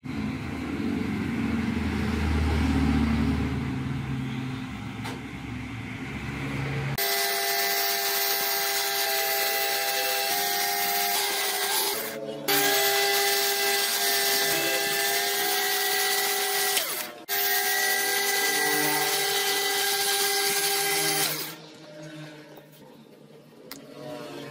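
Bench mini metal lathe machining a small brass sprocket. A low rumbling comes first, then the lathe's steady motor whine starts about a third of the way in, cuts out briefly twice and stops a few seconds before the end.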